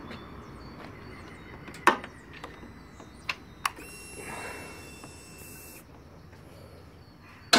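A few sharp clicks at the Harley-Davidson Road King's controls, then a steady high whine lasting about two seconds as the bike is readied to start. The starter kicks in at the very end.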